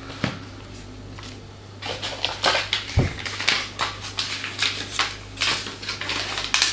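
Paper rustling and crackling as a folded instruction sheet is pulled out of a cardboard box and unfolded, with a soft thump about three seconds in, over a low steady hum.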